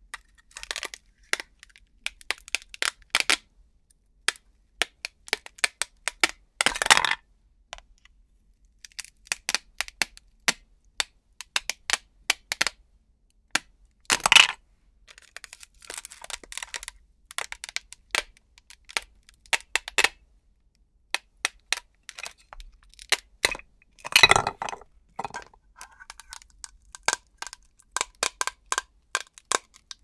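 Velcro hook-and-loop fastening crackling and tearing as a knife blade pries plastic toy fruit pieces off a Velcro catch disc: scattered crisp crackles, with three longer rips spread through as pieces come away.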